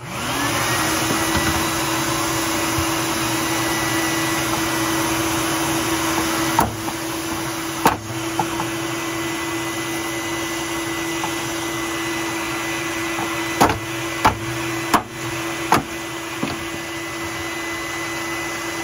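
Shop vac starting up and running steadily, with six sharp hammer blows against the water heater's plastic drain valve, two about a third of the way in and four in quick succession about three quarters through, breaking the valve out to drain a tank that will not drain.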